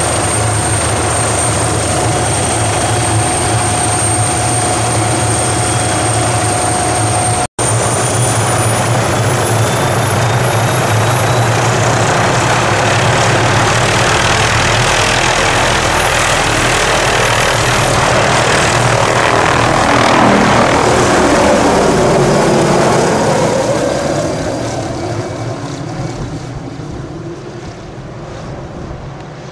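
Small turbine helicopter running close by, with a steady high turbine whine over the rotor noise. After a brief cut about seven seconds in, the whine rises and the noise swells as it lifts off. It fades over the last few seconds as it flies away.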